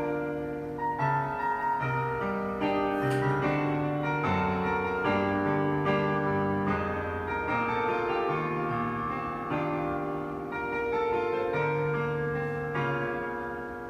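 Piano playing an instrumental passage of the song, sustained chords over a slowly moving bass line, with no singing.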